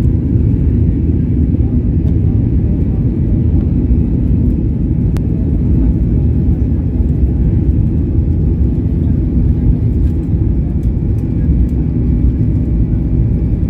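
Jet airliner's engines at takeoff power with the rumble of the wheels on the runway, heard from inside the cabin: a loud, steady low roar during the takeoff roll.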